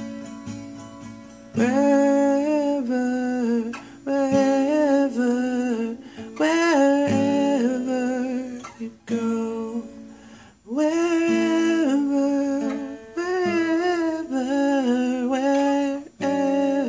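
Acoustic guitar played with a man's wordless sung melody over it. The guitar is heard alone for about the first second and a half, then the voice comes in in phrases with short gaps.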